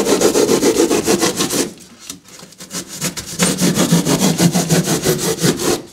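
Hand pruning saw cutting through the expanded polystyrene foam of an insulated concrete form block in a fast, steady run of strokes. The sawing pauses a little under two seconds in and starts again at about three seconds, stopping just before the end.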